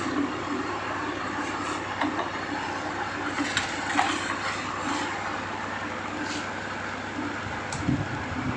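Electric box fan running: a steady rush of moving air over a low motor hum, with a few scattered light ticks.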